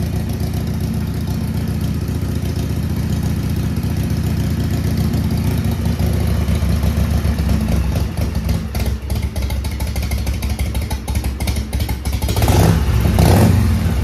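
Harley-Davidson FXR V-twin engine running at a steady idle just after a cold start, with the choke pulled out. The engine note turns rougher after about eight seconds and rises briefly near the end.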